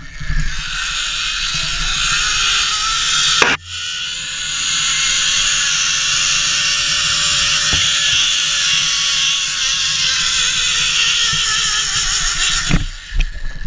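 Zipline trolley pulleys running fast along a steel cable with a loud whirring hiss. The pitch climbs as the rider picks up speed, breaks off sharply about three and a half seconds in, then holds steady and sinks slowly as the trolley slows. It cuts off suddenly near the end as the ride stops at the platform.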